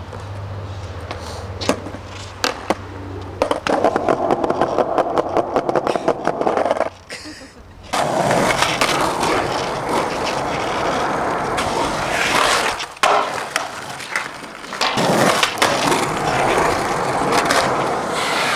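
Skateboard wheels rolling over pavement, clicking rapidly over the seams between paving slabs for a few seconds, then a steadier rolling rumble on smooth concrete with occasional sharp clacks of the board.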